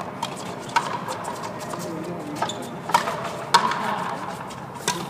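Frontenis rally: the rubber ball cracking off the rackets and the front wall, four loud sharp hits a second or two apart, the loudest about three and a half seconds in, each with a short ring from the walls, plus a few lighter knocks.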